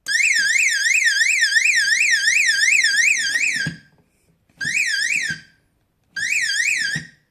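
The alarm module of an OAC CABIN PLUS defibrillator cabinet sounds a warbling siren, its pitch sweeping up and down about three times a second, as it is switched on. It sounds for about three and a half seconds, stops, then gives two short bursts of under a second each.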